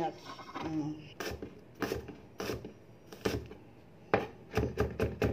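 Chef's knife chopping red onion on a cutting board: a few separate knocks of the blade, then quicker chopping of about four or five strokes a second near the end.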